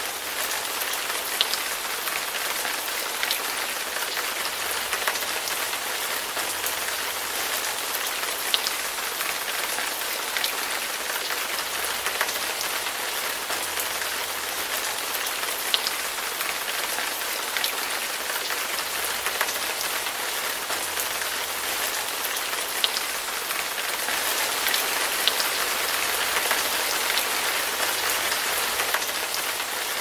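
Heavy rain falling steadily, with now and then a single louder drop landing close by as a sharp tick. It swells slightly near the end.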